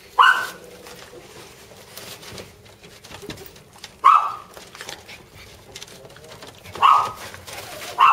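Jack Russell terrier giving four short barks, spaced a few seconds apart.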